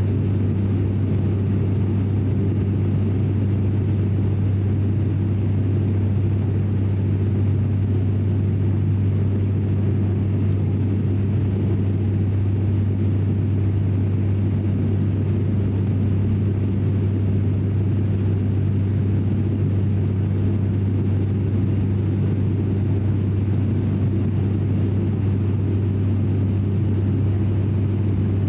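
Cabin drone of an ATR 72 turboprop in flight, heard from a seat beside the propeller. A steady low hum with a second tone above it runs over a constant rush, with a faint high whine, and none of it changes.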